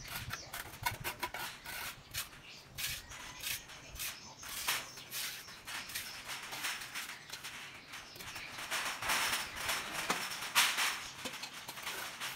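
Hand scrubbing and scraping on the wet concrete floor of a drained pond: irregular scratchy strokes, busier and louder in the second half.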